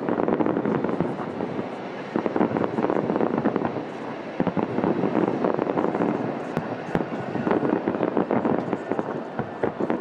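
Fireworks display: a dense, continuous barrage of rapid pops and bangs from bursting aerial shells, swelling and easing in waves about every two seconds.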